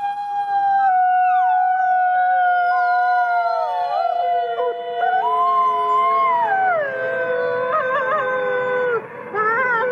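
A chorus of many wolves howling together, with a gray wolf howling close by. Several long howls overlap at different pitches, gliding up and down, and some quick wavering notes come near the end.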